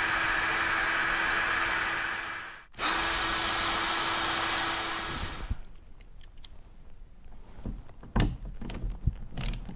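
Cordless drill running steadily in two runs of about two and a half seconds each, boring holes up through a bumper skid plate into a carbon-fiber front splitter. A few faint clicks and taps follow.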